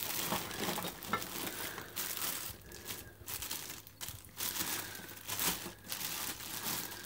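Plastic bread bag crinkling and rustling in uneven bursts as a hand opens it and reaches in for a slice of bread.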